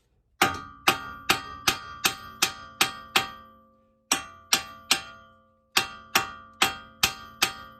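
Hammer blows ringing on the metal of a car's strut assembly, struck to drive the strut down into place. There are three runs of strikes, eight then four then five, at about two to three a second, each with a clear metallic ring.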